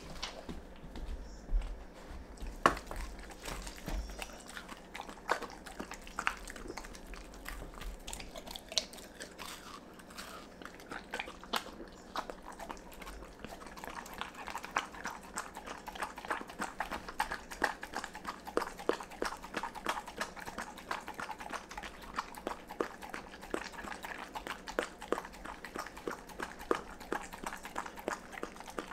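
Dog licking and eating raw egg yolk and ground raw salmon and beef liver off a wooden cutting board. Wet mouth clicks and smacks come sparsely at first, then quickly and steadily from about halfway through.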